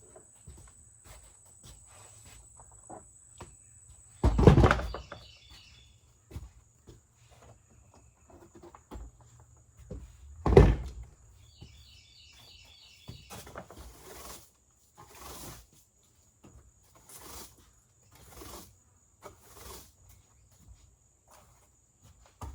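Two heavy thunks about six seconds apart, among quieter knocks and handling noises.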